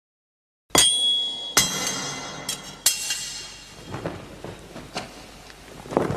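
Metal weapons clashing in a fight: after a moment of dead silence, a sharp metallic clash rings out under a second in and keeps ringing. Three more sharp clangs follow over the next two seconds, then fainter knocks.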